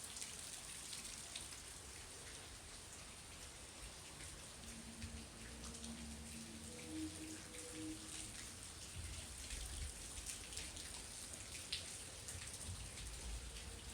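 Rain falling, many small drops pattering steadily. Faint held low tones, like a distant hum or moan at a few pitches, come in about four or five seconds in and fade out a few seconds later.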